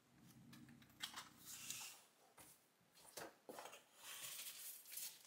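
Soft paper rustling and handling noises as the pages of a printed user guide are leafed through and hands reach into a cardboard box of polystyrene packing. A faint low snore runs under the first two seconds: a small dog sleeping.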